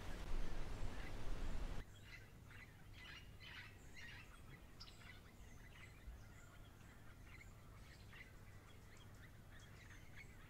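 Loud rustling noise that cuts off suddenly about two seconds in, giving way to many small birds chirping and calling quietly, short repeated calls.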